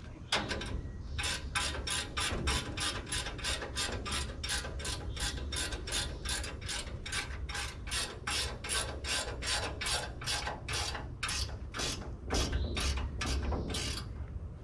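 Ratchet wrench being worked quickly back and forth on a nut, a steady run of rasping clicks at about three to four strokes a second that stops just before the end.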